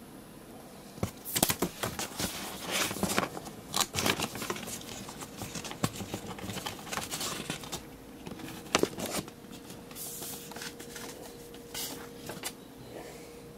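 Paper and card packaging handled close to the microphone: irregular rustling, crinkling and small clicks, busiest in the first part and then sparser toward the end.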